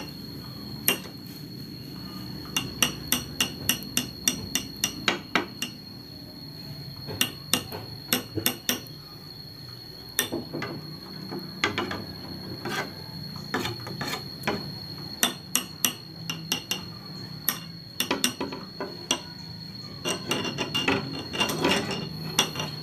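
Metal hand tools working the valve-cover bolts of a Honda Revo Absolute engine, and the cover being pulled off: sharp metallic clicks and clinks in quick runs of several at a time.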